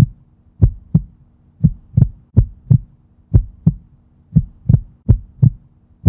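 Heartbeat sound effect: paired low thumps in a lub-dub rhythm, about one pair a second, over a faint steady hum.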